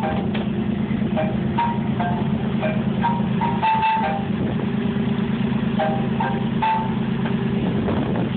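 Boat engine running steadily with a low drone. Short high-pitched chirps or squeaks and light clicks come through now and then.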